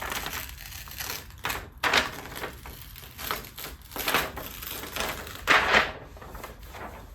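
Plastic DTF transfer film crinkling and rustling as it is handled and peeled, in a series of short rustles, the loudest about five and a half seconds in.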